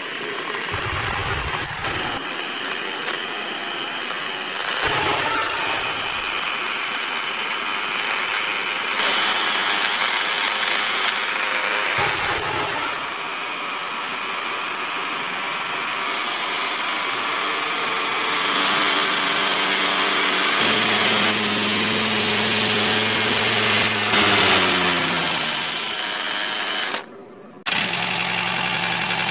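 Small motor of a miniature model tractor running steadily, driving a belt-and-pulley toy grain mill as it grinds wheat into flour. Its whine falls in pitch about three-quarters of the way through.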